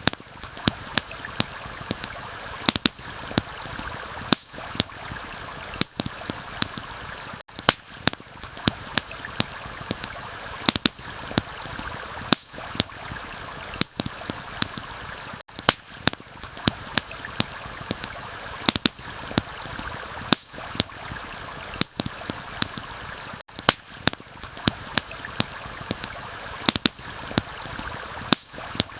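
Steady rushing of a flowing stream, overlaid with frequent sharp pops and snaps from a crackling wood campfire. The water sound dips out briefly about every eight seconds.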